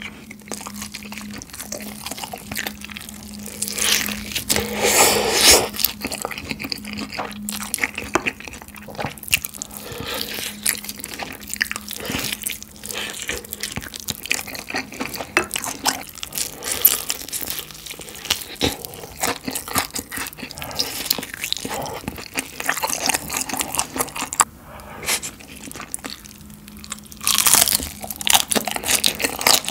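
Close-miked eating sounds of spicy sauce-glazed fried chicken and rice: repeated bites with crunching and chewing, loudest about four seconds in and again near the end.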